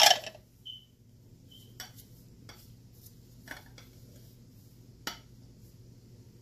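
Small clay cups clinking and knocking as they are set down and picked up: one loud knock at the start, two short ringing clinks within the next two seconds, then a few light clicks.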